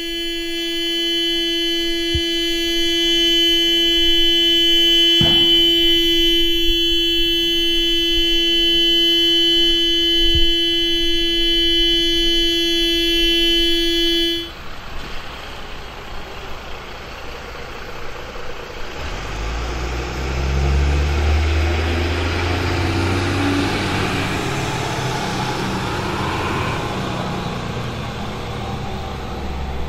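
Car horn of the burning car sounding in one steady, unbroken tone, with sharp pops about 2, 5 and 10 seconds in. It cuts off suddenly about halfway through. Then the fire crackles and rumbles, with a deep rumble swelling about two-thirds of the way in.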